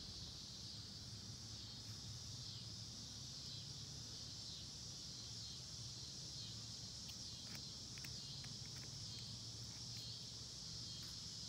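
Faint steady background of a high, even hiss and a low hum, with a few light clicks about three-quarters of the way through as multimeter test leads are moved on the solenoid pack's connector pins.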